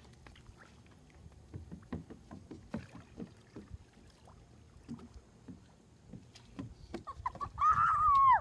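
Kayak paddle strokes in calm water: small, irregular splashes and drips from the blades. Near the end a loud, wavering high call sounds for about a second and breaks off, falling in pitch.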